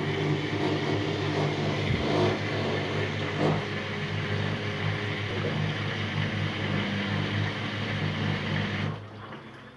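Washing machine running on a spin, a steady low motor-and-drum hum with a knocking, the fault the machine is being checked for. The sound cuts off sharply about nine seconds in.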